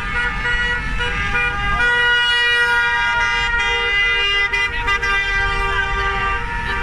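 Several car horns sounding together from a passing convoy of cars: long, overlapping held blasts at different pitches over the low rumble of engines.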